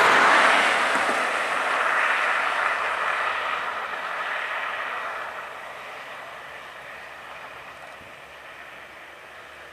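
Road traffic: a vehicle passing close by with a rush of tyre and engine noise, loudest at the start and fading away over the next several seconds.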